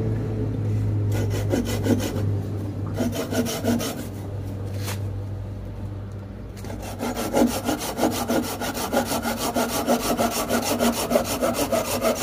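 A new hand pruning saw with coarse teeth cutting through a thin tree branch in fast back-and-forth strokes. The strokes pause briefly near the middle, then resume at a steady quick pace.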